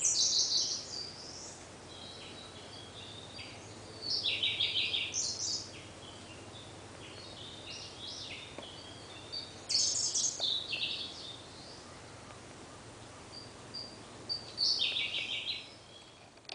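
Male Siberian blue robin singing. Four loud phrases come about every five seconds, each a fast rattling run of notes led in by a few soft, thin high notes.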